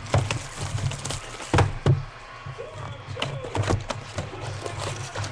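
Knocks and clicks of sealed trading-card boxes and packs being handled and opened on a table. The few sharpest knocks fall in the first two seconds, with lighter handling clicks after.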